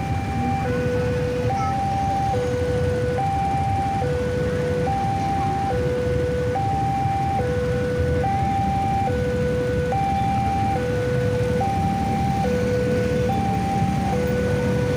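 Railway level-crossing warning alarm sounding a steady two-tone alternation, a higher and a lower electronic tone of just under a second each, repeating evenly. A low rumble of traffic engines runs underneath.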